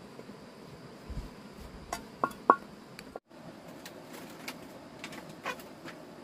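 Steady high insect chirring, with a few sharp clicks and knocks of something being handled, the loudest about two and a half seconds in. The sound cuts out for a moment about three seconds in.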